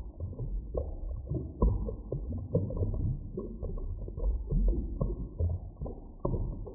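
Muffled underwater ambience: irregular bubbling and gurgling pops, some rising in pitch, over a deep rumble. The loudest pops come about a second and a half in and near the end.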